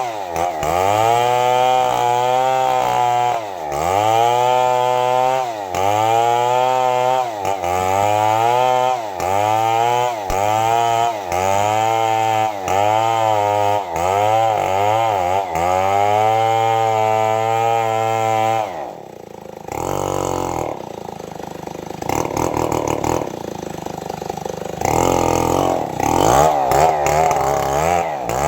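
Stihl 070 two-stroke chainsaw cutting wood. Its engine pitch drops under load and climbs back about every one and a half to two seconds, a dozen times over. About two-thirds of the way through it falls to a lower, rougher running, then revs up again near the end.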